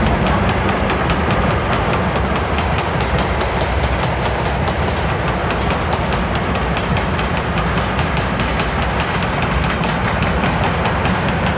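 A steady, loud rushing rumble with a dense, irregular patter of small clicks running through it.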